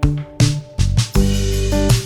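Music: pitched instruments with a bass line and sharp drum hits about every half second.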